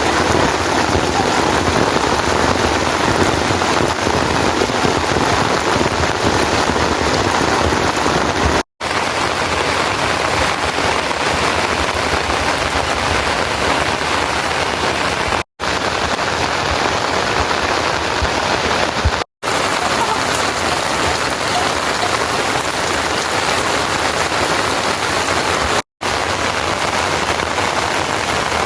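Steady heavy rain falling, an even dense hiss, interrupted four times by brief silences at cuts between clips.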